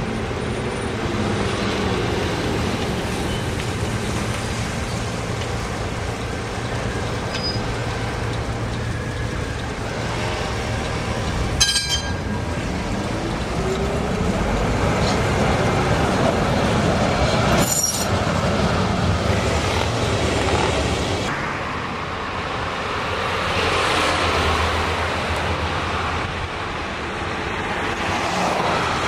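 Ex-German Duewag tram pulling away: a steady hum, then a motor whine rising in pitch as it gathers speed. Two sharp knocks come along the way. Later comes the noise of road traffic, with the tram running beside it.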